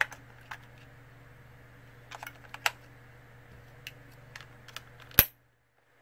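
Small plastic clicks and taps of an air-conditioner remote being reassembled: batteries pressed into the battery compartment and the plastic battery cover snapped shut. The clicks come scattered, in a cluster a little past two seconds and another past four, with one loud sharp click about five seconds in, after which the sound cuts off.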